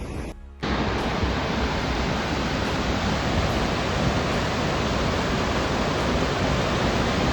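Floodwater rushing through a street, a loud, steady rush of water that cuts in abruptly about half a second in.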